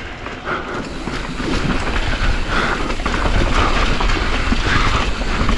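Specialized Kenevo SL e-mountain bike descending a rough, rutted dirt trail: a steady clatter of tyres over ruts and stones and the bike's parts rattling, heard through a handlebar-mounted camera.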